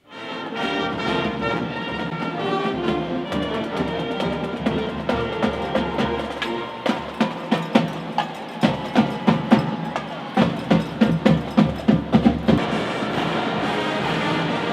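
Background music with sustained tones and, from about halfway through, a steady percussive beat.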